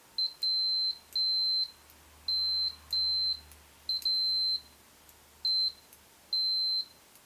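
Fluke 79-series multimeter's continuity beeper giving a really high-pitched single-tone beep each time the test probe tips touch, about nine beeps of uneven length and spacing as the probes are tapped together.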